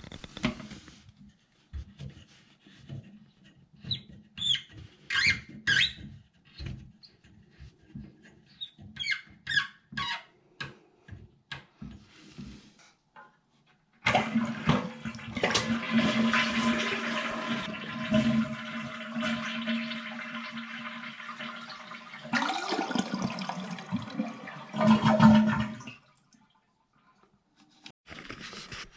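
A series of clicks and knocks, then a Mansfield 211 toilet flushing: water rushes steadily for about twelve seconds before cutting off suddenly.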